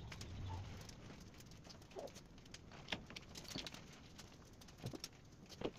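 Faint scattered clicks and light knocks of engine parts and hand tools being handled around an engine block on a stand.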